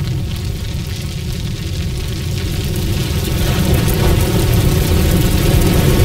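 Deep, steady rumbling roar of a room fire, growing gradually louder.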